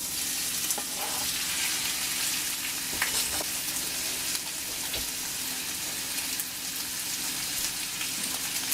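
Strips of raw chicken breast sizzling in hot oil in a sauté pan on medium-high heat, a steady hiss that starts suddenly as the meat hits the pan, with a few light clicks of the pieces being moved.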